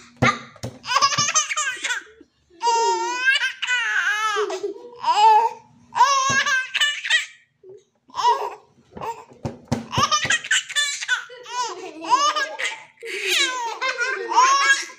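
A baby laughing in repeated high-pitched bouts, with short pauses between them.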